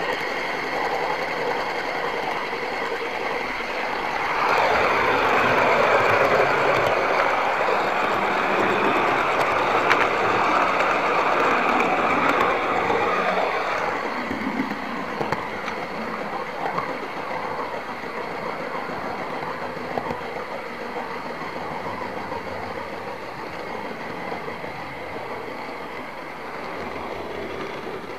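OO gauge model train running along its track: a steady whirr from the motor and wheels with clicking over the rail joints. It grows louder about four seconds in and eases off again after about fourteen seconds.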